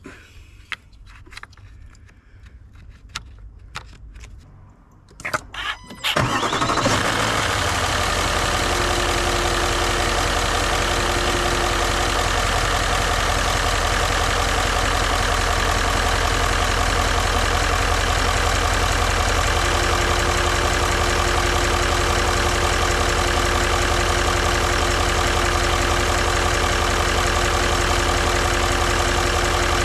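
A few small clicks of a sensor plug being fitted, then a Range Rover L405's engine starts about six seconds in and settles into a steady idle, with a faint steady whine that comes and goes. It is running on a MAP sensor that the owner believes faulty.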